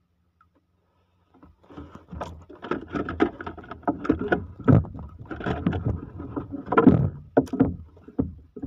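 Irregular knocking, rubbing and splashing in a small wooden boat as a handline with a hooked Spanish mackerel is hauled in hand over hand. It starts about a second and a half in and goes on loud and uneven to the end.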